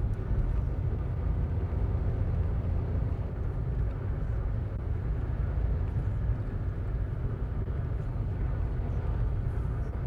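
Steady road noise inside a moving car: tyres running on a concrete highway and the engine under way, a low even rumble with no change in pace.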